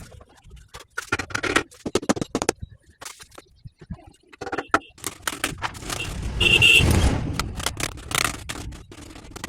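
Handling noises: irregular clicks, knocks and scraping, with a louder rumbling scrape and a brief squeak about six to seven seconds in.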